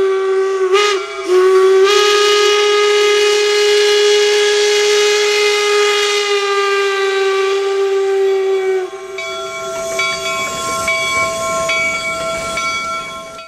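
Steam locomotive whistle blowing one long, steady note, with a brief waver about a second in. Near nine seconds it gives way to a higher, thinner tone over a hiss of steam.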